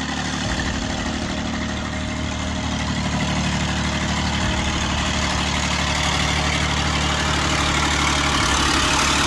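Diesel engine of a six-wheel-drive Ural logging truck running steadily under load as it pushes through deep mud and water, growing slightly louder toward the end.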